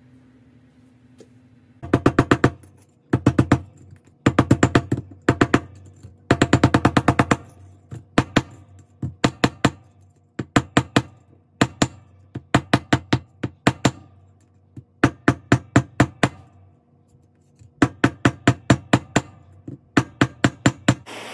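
Ball-peen hammer striking braided fine silver wire on a steel bench block: metal-on-metal taps in quick bursts of about five to eight strikes with short pauses between, starting about two seconds in.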